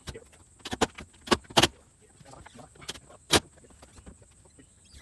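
Sharp knocks and clacks on the wooden outhouse door and its hardware as it is fitted: a quick cluster of strikes in the first two seconds, then one more about three and a half seconds in.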